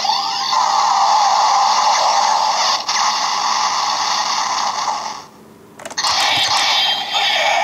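Electronic sound effects from the DX Sengoku Driver toy belt with its orange lock seed, played through the toy's small speaker: a harsh, tinny hiss-like effect that breaks off about five seconds in and starts again about a second later.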